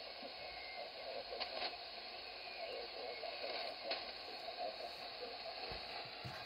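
Shortwave band static from a Radioberry software-defined receiver tuned to single-sideband on the 75-metre band: a steady hiss in a gap with no station transmitting, with a few faint crackles.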